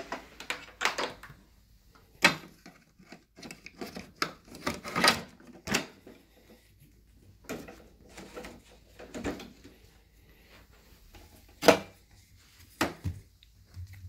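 Irregular plastic clicks, knocks and rattles from handling a Dirt Devil Featherlite upright vacuum's hose and plastic attachment tools, with the motor off. The sharpest knocks come a little after two seconds in and again near twelve seconds in.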